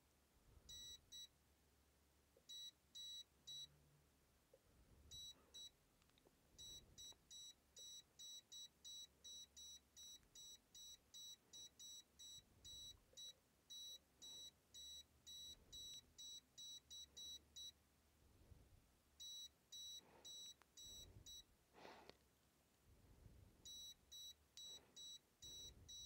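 Sunshine DT-17N digital multimeter beeping in non-contact voltage mode: faint, short, high beeps in runs that start and stop, with one long steady run in the middle. The beeping is the meter's voltage-detection alert, triggered by a live power cord's hot wire held near it.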